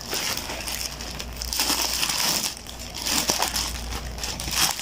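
Packaging crinkling and rustling in irregular bursts as a newly delivered clothing item is handled and unwrapped.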